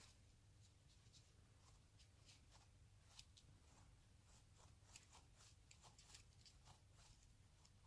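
Faint scattered rustling and small clicks from light handling, over a low steady hum.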